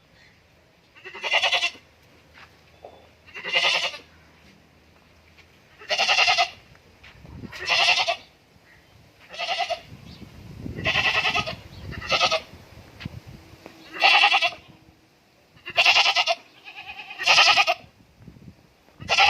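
Goat bleating over and over, about ten calls spaced roughly two seconds apart.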